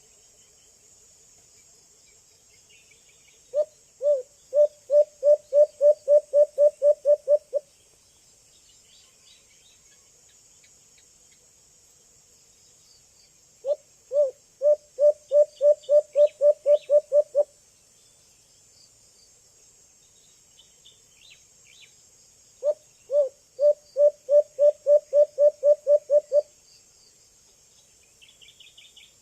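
Young white-eared brown dove calling: a run of about a dozen low hoots that come quicker after the first two. The run comes three times, about ten seconds apart.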